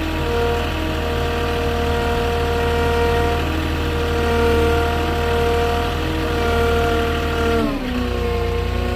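Truck-mounted forklift engine running steadily at raised revs, then dropping sharply to a lower idle about seven and a half seconds in.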